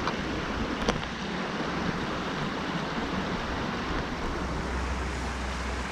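Steady rushing of a flowing river, with low wind rumble on the microphone that grows stronger after the middle and a single faint click about a second in.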